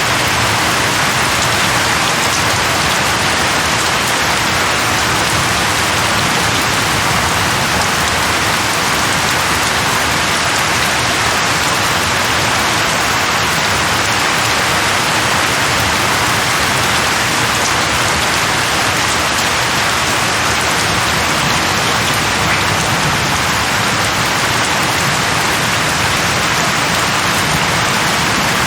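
Steady heavy rainfall pattering on leaves, an even dense hiss with no breaks or thunder.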